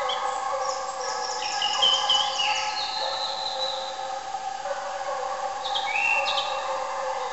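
Russian hounds baying in the distance on a hare chase, their voices blending into a steady, wavering drone. A small bird chirps twice over it.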